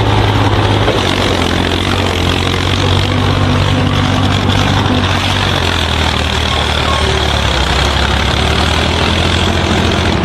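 A heavy machine's engine running steadily under a loud, dense noise. Its low hum drops in pitch about a second in and again about six seconds in.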